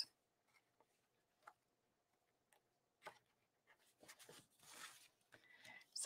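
Near silence, with a couple of faint light taps and a soft rustle near the end as sheets of patterned paper are handled and laid down.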